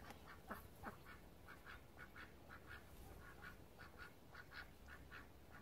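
Domestic ducks quacking faintly in a steady run of short quacks, about four a second.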